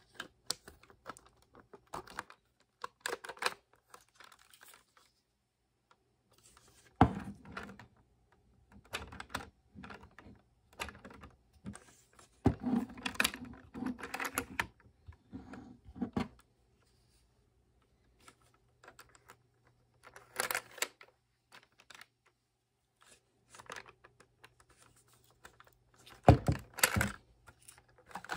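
Lego bricks of a brick-built sawn-off Lee-Enfield rifle model clicking and rattling as the model is handled and its parts are worked, in irregular clusters of sharp plastic clicks. The clicking is densest about halfway through, pauses briefly, and ends with a few louder clicks near the end.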